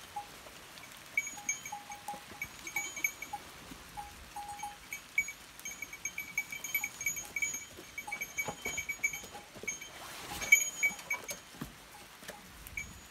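Small bells on grazing goats clinking irregularly in short clusters as the animals move. A brief rustling burst comes about ten seconds in.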